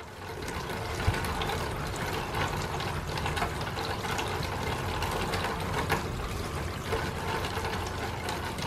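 Rainwater pouring from a gutter downspout and splashing onto a splash block, with rain spattering around it. There is a single thud about a second in.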